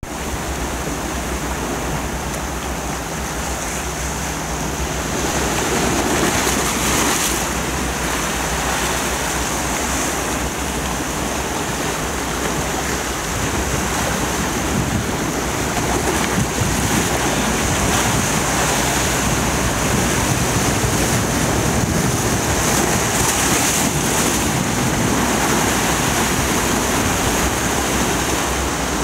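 Sea surf breaking and washing over a rocky shoreline, a steady rushing with slight swells in loudness.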